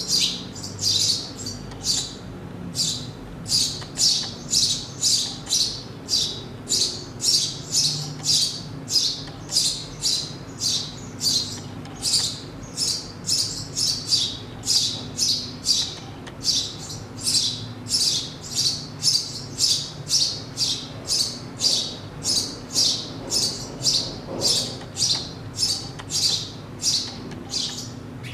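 A small bird chirping over and over, short high-pitched calls at a steady pace of about two a second.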